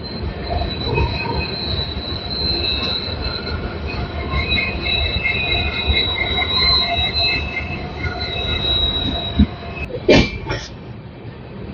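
Passenger train coaches running on the rails, with a steady rumble and high wheel squeal. A couple of sharp knocks come about ten seconds in, and the squeal fades out.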